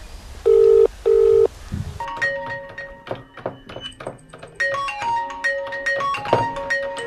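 Telephone ringback tone, one double ring of two short steady beeps, followed from about two seconds in by a mobile phone's ringtone melody playing for an incoming call.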